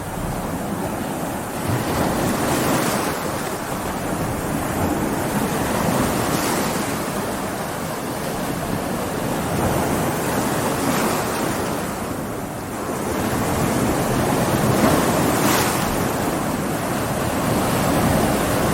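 Ocean waves breaking and washing on a beach, a continuous surf rush that swells and recedes every few seconds, with some wind noise on the microphone.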